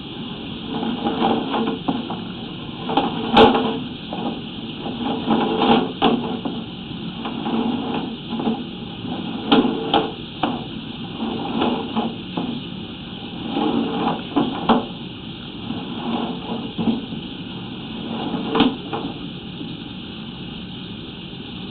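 Irregular knocks, bumps and scraping of a sewer inspection camera and its push cable being fed through the pipe, over a steady hiss. The sharpest knock comes about three and a half seconds in.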